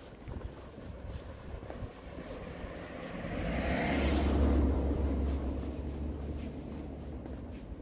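A motor vehicle passing close by: its engine rumble and tyre noise swell to a peak about four seconds in, then fade away.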